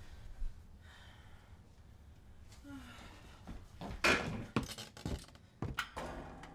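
A run of sharp knocks and clatters from hard objects being handled in a small room, the loudest about four seconds in.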